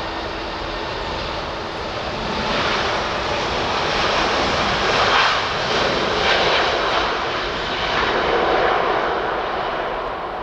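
Airbus A380's four Rolls-Royce Trent 900 jet engines at takeoff thrust as the aircraft rolls down the runway toward rotation. It is a loud, rushing jet noise that swells from about two seconds in, is loudest through the middle and eases slightly near the end.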